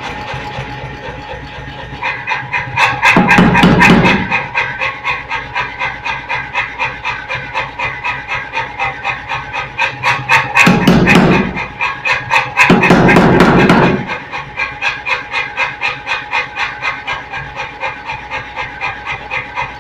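Power hammer striking a red-hot bar end in a closed ball die, forging an elliptical ball, in regular blows about three a second. There are three runs of heavier, louder blows, about 3, 11 and 13 seconds in, over the hammer's steady motor hum.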